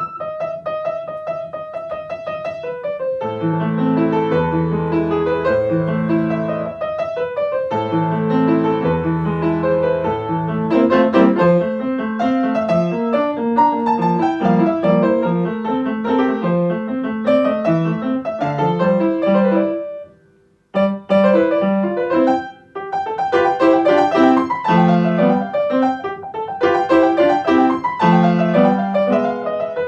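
Background piano music: a solo piano playing chords and melody, pausing briefly about two-thirds of the way through before going on.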